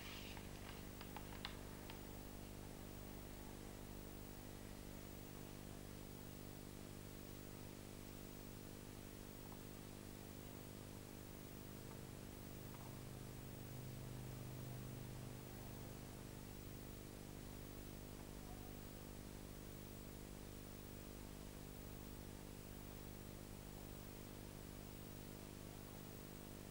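Faint steady electrical hum with many evenly spaced overtones under a light hiss, with a few faint clicks in the first second or so and a slight swell in the hum about halfway through.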